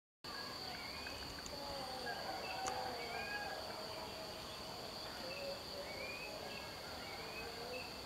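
A steady high insect drone with short whistled bird calls scattered through it, several of them sliding upward.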